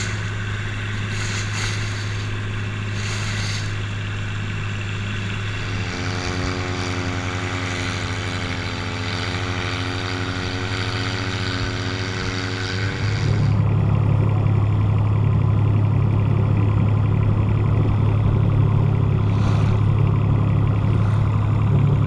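Boat engine running steadily with a constant low hum. A second engine tone joins about six seconds in and drops out around thirteen seconds, when the engine noise gets noticeably louder.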